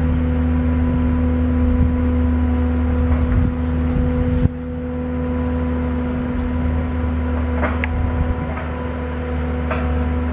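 An engine running at a steady idle. There is a sudden knock about four and a half seconds in, after which it is a little quieter, and a few light clanks follow near the end.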